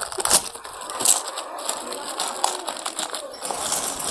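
Plastic courier mailer bag being pulled and torn open by hand: crinkling and rustling of the plastic, with several sharp crackles as it gives.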